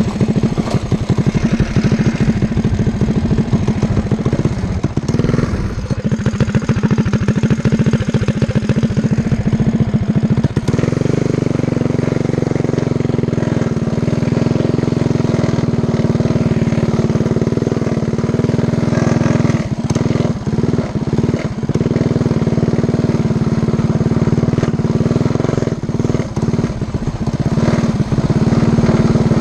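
Predator 212 Hemi single-cylinder engine on a Coleman CT100U mini bike running under way. It sounds choppy and uneven for the first ten seconds or so, then settles into a steadier drone, with a few brief knocks in the second half.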